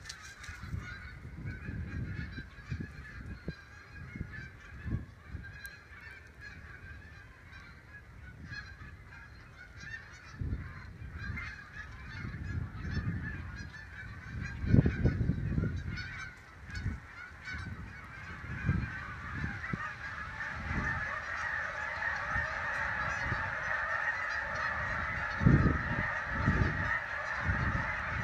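A large flock of geese honking, many calls overlapping, growing louder in the last third as the flock is flushed into flight. Irregular low gusts of wind buffet the microphone.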